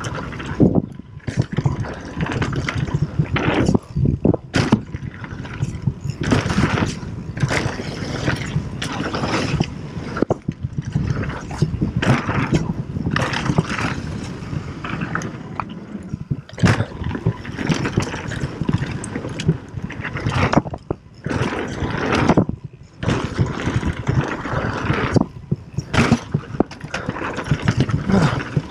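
Mountain bike descending a rough dirt trail at speed: rumbling tyre noise and rushing wind noise, with frequent knocks and rattles from the bike over bumps, rising and falling in level with a few brief quieter gaps.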